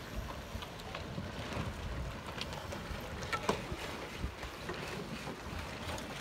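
Wind buffeting the microphone in a low, uneven rumble, with scattered light ticks and one sharper click about three and a half seconds in.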